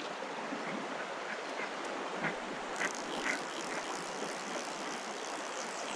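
Creek water running steadily with an even rushing hiss, and a few faint short clicks over it.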